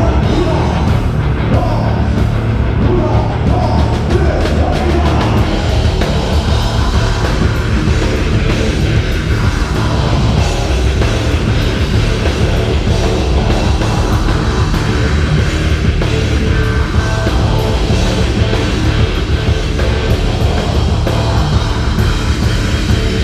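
Live heavy rock band playing loud and steady with distorted guitars, bass and a drum kit, with little or no singing.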